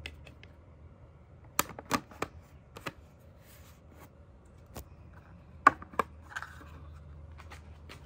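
A hand tapping and pressing on the hard plastic Shad top-box base plate: a scatter of sharp plastic taps and clicks, the loudest a pair a little past the middle, over a low steady rumble.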